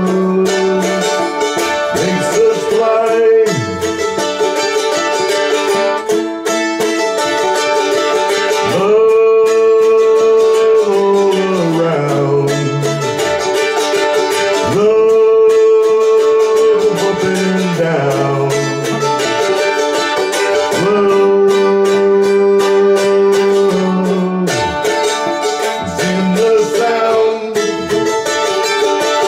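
Fiddle and guitar playing together: long held notes that now and then slide down in pitch, over a bass line stepping downward.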